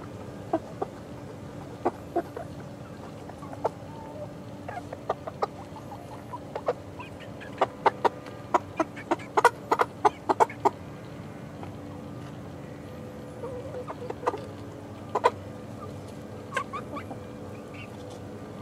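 Young chickens, about eleven weeks old, clucking in short, sharp notes. The notes are scattered at first, then come thick and fast for a few seconds around the middle, with a few more near the end.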